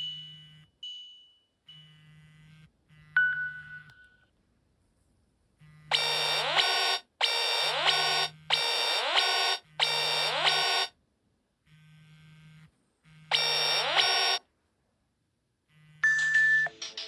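Nokia N79 clock alarm tones from the phone's speaker. A single electronic chime about three seconds in, then a run of loud, buzzy electronic alarm beeps in roughly one-second bursts; a different, mellower alarm tone starts near the end.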